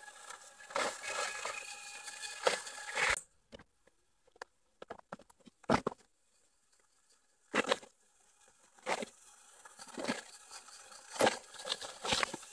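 Rustling and brushing through dense leafy undergrowth for about three seconds, then after a sudden drop, a machete striking stems and leaf litter on the forest floor in single sharp strokes, about six of them with quiet gaps between.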